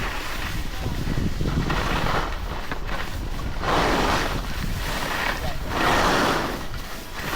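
Wind rushing over the microphone while skiing: a steady noise that swells twice, about four and six seconds in.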